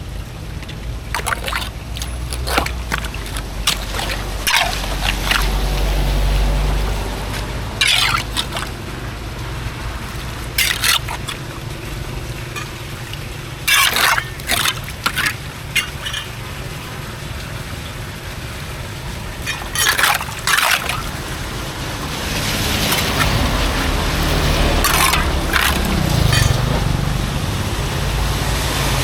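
Water trickling and splashing at a culvert being cleared, with short sharp sounds scattered through it and a louder rushing hiss building over the last several seconds.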